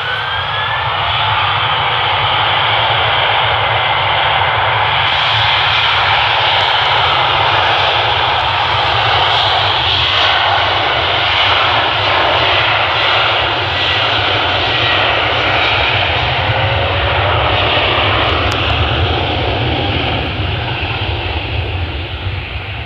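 Aeroplane engines at take-off power: a loud, steady rushing noise over a low rumble, with a rising whine in the first second. It eases slightly near the end.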